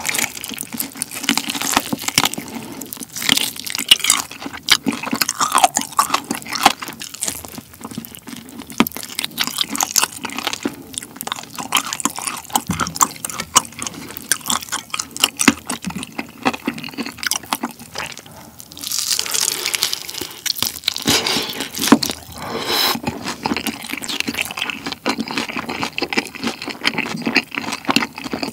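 Close-miked eating of sweet-spicy sauce-glazed Korean fried chicken drumsticks: biting, tearing meat off the bone and chewing, with many small, irregular crunchy and wet mouth clicks.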